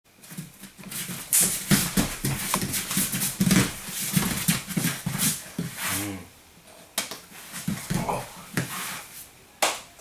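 Two grapplers struggling on the mat, heard as rapid, forceful breaths and short vocal cries, with a brief pitched cry about six seconds in.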